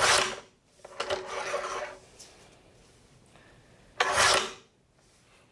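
Paper cutter slicing through poster board: three rasping strokes of the blade, a short loud one, a longer one about a second later, and another loud one near the end.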